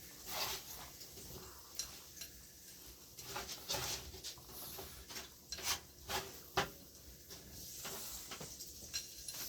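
Fries being flipped: scattered light clicks, knocks and scrapes of a kitchen utensil against cookware, with a sharper knock near the end.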